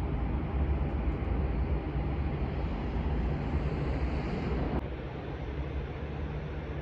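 Steady roar and rumble of jet aircraft engines, with a hiss that swells and then drops off suddenly about five seconds in, leaving a quieter rumble.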